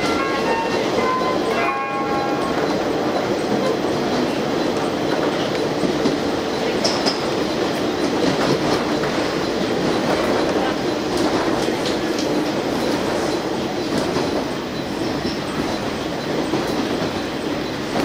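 Inside a KiHa 47 diesel railcar, the JR Shikoku on-board announcement chime plays its last stepped notes in the first two seconds. After that there is the steady rumble of the car running on jointed track, with scattered clicks of the wheels over rail joints and points.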